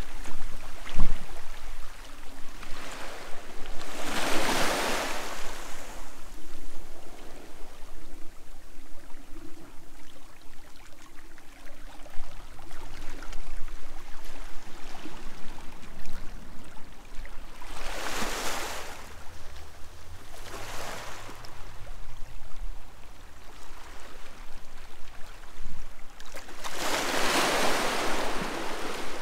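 Sea waves washing onto a shore: a steady wash of surf with several swells of louder hiss as waves break, the strongest about four seconds in and near the end.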